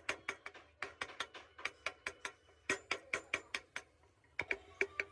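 Carving gouge struck again and again into clamped hardwood, giving quick sharp taps at about five a second. The taps pause briefly near the end, then start again with a faint metallic ring.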